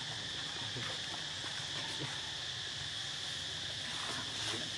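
Steady high-pitched drone of forest insects, unbroken throughout, over a low background hum.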